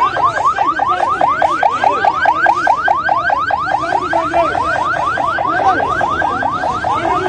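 Electronic siren whooping in fast, evenly repeated rising sweeps, about five a second, loud and unbroken.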